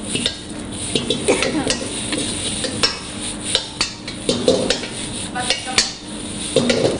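Steel ladle knocking and scraping against a wok as noodles are stir-fried and tossed over a high gas flame, with sizzling underneath. The knocks come sharp and irregular, several a second.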